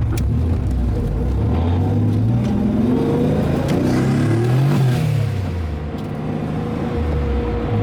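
Nissan 300ZX turbo engine idling, then revved up once and let fall back to idle through its exhaust.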